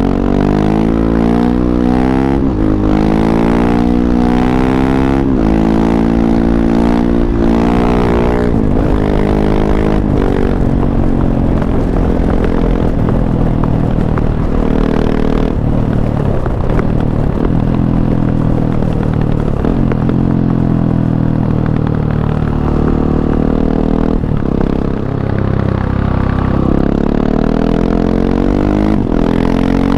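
KTM 690 SMC-R's single-cylinder four-stroke engine running through an Arrow Race-Tech exhaust with its dB killer fitted. Over the first ten seconds it accelerates through the gears, the pitch climbing in several runs that each drop back at a shift, then it settles to a steadier speed with smaller rises and falls.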